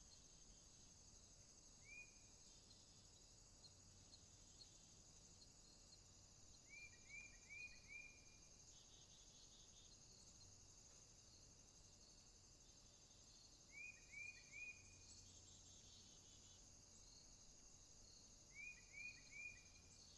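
Faint nature ambience: a steady high insect chorus, over which a bird gives short runs of three or four quick chirps about every five to six seconds.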